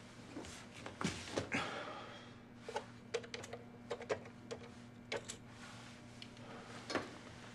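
Push-button desk telephone being handled: a few knocks as it is picked up, then a quick run of about a dozen keypad button clicks, some with short beeps, over two and a half seconds as a number is dialled. A steady low hum runs underneath.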